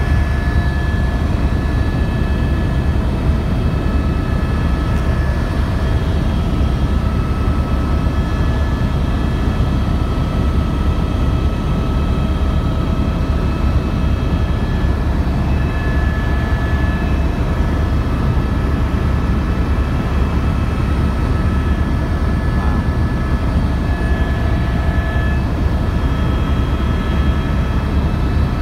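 Helicopter in steady cruise flight, heard from inside the cabin: rotor and turbine engine making a loud, steady low rumble with a fast flutter, with several steady high whining tones above it.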